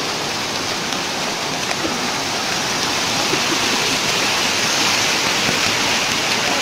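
Steady rushing of a waterfall: shallow water pouring over stepped rock cascades.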